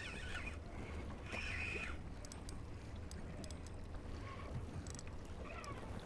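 Wind and water noise around a small boat while a hooked fish is reeled in on a Penn spinning reel, with sharp ticks and short wavering squeaks a few times.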